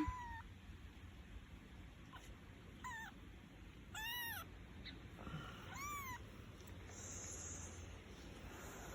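Newborn kittens mewing faintly: a few short, high-pitched mews that each rise and fall in pitch, at about three, four and six seconds in.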